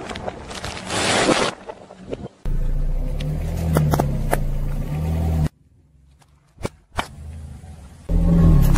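Car tyre crushing things on asphalt in a run of short cuts: first a crackling crunch of a snack packet being flattened, then a car's engine running low and steady with several sharp cracks and pops as the tyre rolls over objects. After a short quiet gap with two sharp snaps, the engine comes in loud again near the end.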